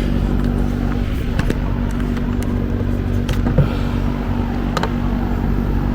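Steady machine hum, with a few faint clicks and taps over it.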